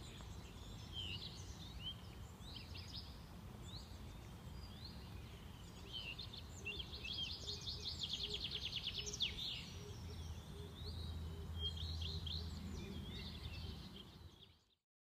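Songbirds chirping and singing, with one bird giving a fast trill in the middle, over a steady low outdoor rumble; the sound fades out near the end.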